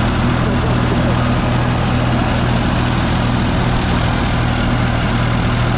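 Turbocharged diesel engine of a New Holland 3630 tractor running steadily at a constant, fairly high throttle.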